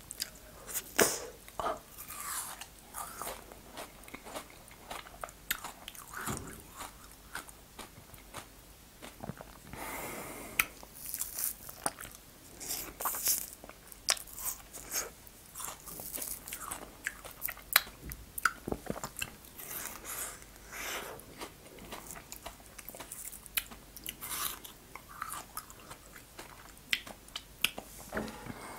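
Close-miked biting and chewing of frozen fruit ice eaten from plastic tubes: a scatter of crisp crunches and clicks as the ice breaks between the teeth.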